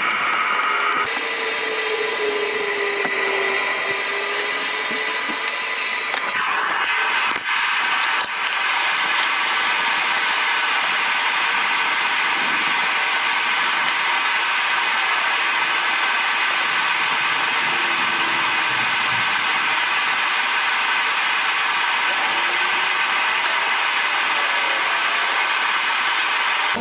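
Leaf blower running steadily, blowing water off wet electrical parts in a truck's engine bay. The sound shifts, with a couple of clicks, about six to eight seconds in, then holds steady.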